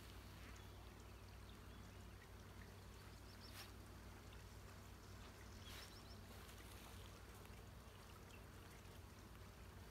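Near silence: faint outdoor background with a steady low hum and hiss, broken by two faint short sounds about three and a half and six seconds in.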